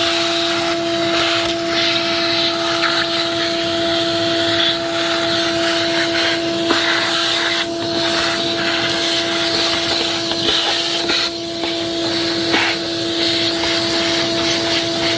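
Vacuum cleaner running with a steady hum, its hose nozzle sucking mouse droppings out of an empty car battery tray, with occasional clicks as bits are drawn up.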